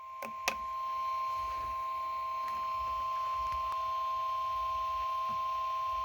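NOAA Weather Radio warning alarm tone: one steady, unbroken alert tone, heralding a severe thunderstorm warning. Two sharp clicks come about half a second in.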